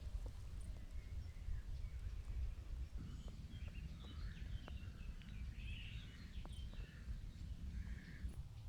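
Small birds chirping faintly, mostly from about three seconds in, over a steady low outdoor rumble on the microphone, with a few light clicks.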